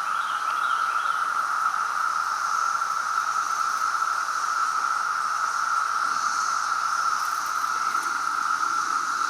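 Chorus of Brood X periodical cicadas: a loud, steady, even drone with no breaks, and a fainter higher-pitched hiss above it that swells a little a few times.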